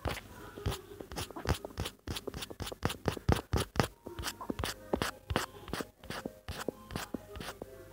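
A run of light, irregular clicks and taps, several each second, over faint room tone.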